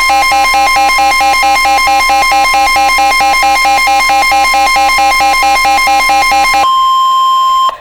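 Emergency Alert System warning tones: a steady high single tone with a fast warbling two-note tone over it, alternating about four times a second. The warble stops about six and a half seconds in, leaving the steady tone alone for about a second before it cuts off. The tones signal an incoming severe thunderstorm warning.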